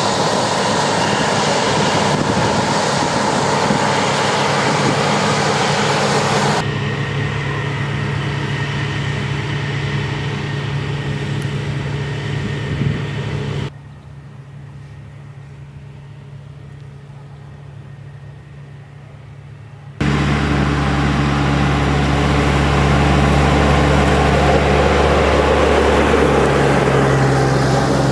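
Heavy farm machinery engines running steadily, in separate cut-together stretches. The sound changes abruptly about a quarter of the way in, again at the halfway point and again about two-thirds through, and it is much quieter in the stretch between the last two changes.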